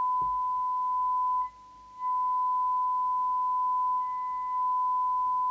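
Steady pure test tone from a 1982 Maxcom 20E FM CB radio's receive audio output, demodulated from a signal generator's test signal while a receive coil is tuned for the largest audio output. About a second and a half in the tone drops away sharply for half a second and comes back, then dips slightly again a little before the end.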